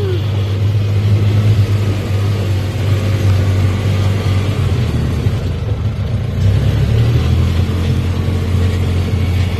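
Side-by-side UTV driving along a gravel track, its engine running with a steady low drone, shifting slightly about six seconds in.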